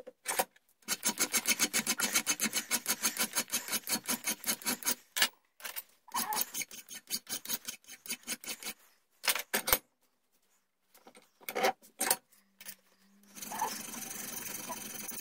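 Hand file rasping across a brass sight blank clamped in a bench vise, in bursts of quick back-and-forth strokes, about five a second, with short pauses between them.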